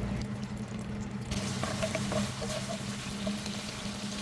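Whole spices (mustard seeds, dried red chilies, fenugreek seeds, curry leaf) sizzling and crackling in hot oil, with small pops; the sizzle grows louder about a second in, over a steady low hum.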